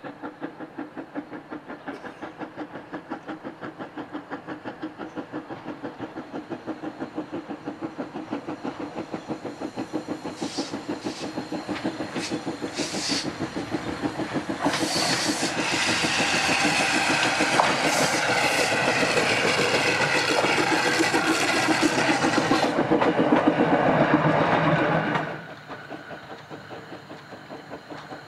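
GWR steam railmotor No. 93 running under steam, its exhaust beating in a rapid, even rhythm that grows louder as it comes closer, then turns louder and busier with clattering and hiss as it passes close. Near the end the sound drops suddenly to a fainter, more distant exhaust beat.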